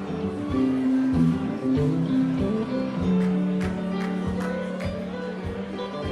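A band playing a country-rock song, with guitars over a steady beat.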